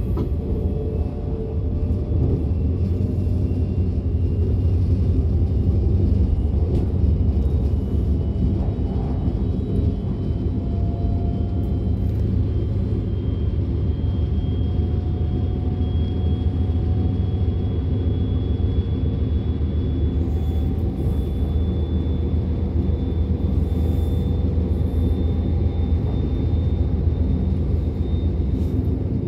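Interior running noise of a DB class 425 electric multiple unit travelling at speed: a steady low rumble with a faint whine that slowly rises in pitch.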